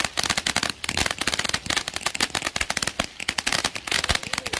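Small ground fountain firework spraying sparks, with a dense fast crackle of many small pops.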